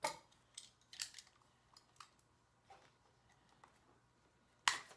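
Scissors cutting heat-shrink tubing to length: a few light clicks of handling, then one sharp snip near the end.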